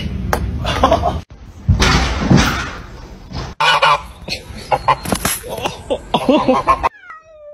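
Domestic geese honking repeatedly in an aggressive scuffle, for about three seconds in the middle.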